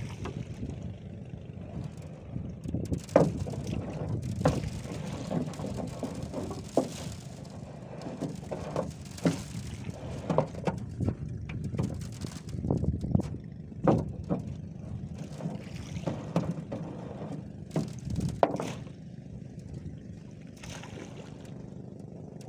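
Repeated knocks, clacks and rustling as a long collapsible framed trap net (lú) is lifted and paid out over the side of a boat, over steady wind rumble. The handling noise is busiest from about three seconds in and stops a few seconds before the end.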